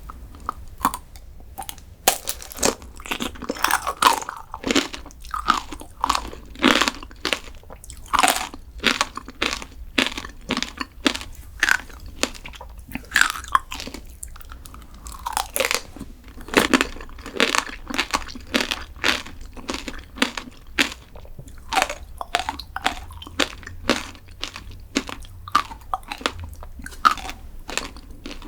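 Close-miked eating: a crunchy sweet dessert being bitten and chewed, with crisp crunches about once or twice a second over steady chewing.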